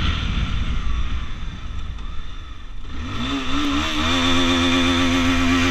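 Motorcycle engine and road rumble heard from the bike's own camera. About three seconds in, the engine revs up and then holds a steady pitch as the bike pulls along.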